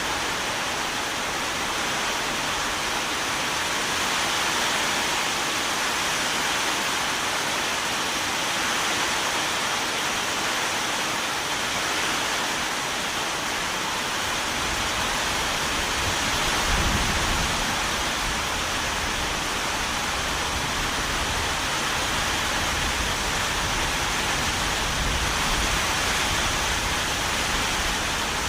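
Steady, even rain hiss. About halfway through a low rumble joins it and stays to the end, swelling briefly soon after it comes in.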